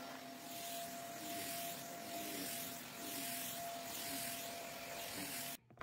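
Stick vacuum cleaner running as it is pushed back and forth over a tile floor and a rug. Its steady hum swells and eases about once a second, and it cuts off abruptly just before the end.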